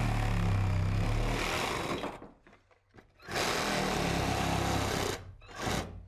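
Reciprocating saw cutting through drywall. It runs for about two seconds, stops for about a second, runs again for about two seconds, then gives a short burst near the end.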